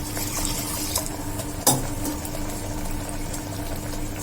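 A pot of crab and masala cooking in oil on the stove, a steady bubbling hiss over a steady low hum. A single sharp clink, the loudest sound, comes about one and a half seconds in.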